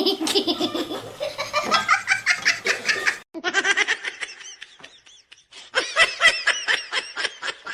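People laughing hard in quick, high-pitched, breathless bursts. The laughter breaks off about three seconds in and starts again shortly after.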